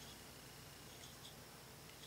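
Near silence: room tone, with a few faint soft ticks.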